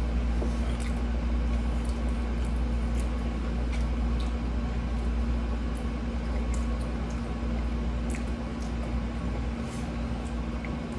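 A person chewing food, with faint scattered mouth and utensil clicks, over a steady low hum.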